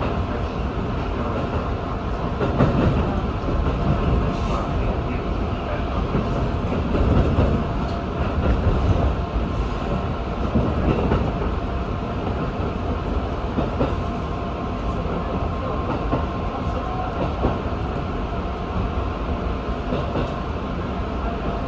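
Electric train running on track, heard from inside the front of the train: a steady rumble of wheels on rail, with clacking as the wheels pass over turnouts. The clatter swells louder a few times in the first half.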